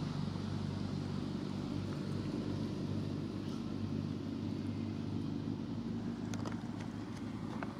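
An engine running steadily at idle, giving a low, even hum, with a few faint clicks near the end.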